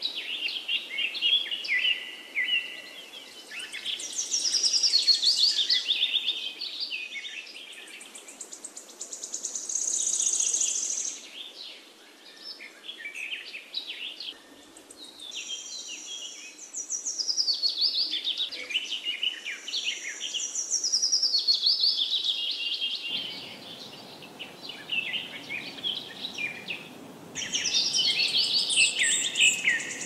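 Several songbirds singing and chirping over one another in high, rapid trills and repeated notes, with brief lulls. About two-thirds of the way in, a faint low rumble of background noise joins.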